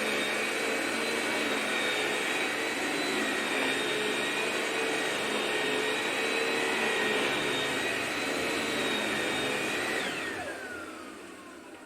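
Vacuum cleaner running with a steady high whine. About ten seconds in it is switched off, and its whine falls in pitch and fades as the motor winds down.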